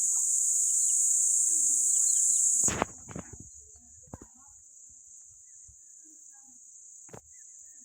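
Steady high-pitched drone of insects. It is loud at first and then falls away sharply about a third of the way in, after a brief knocking clatter, and carries on much quieter. A few faint short chirps and single clicks sound over it.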